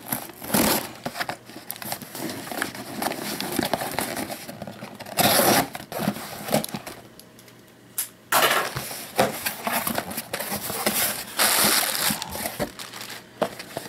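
Mailed package being torn open by hand, its packaging tearing and crinkling in irregular bursts with scrapes and small knocks.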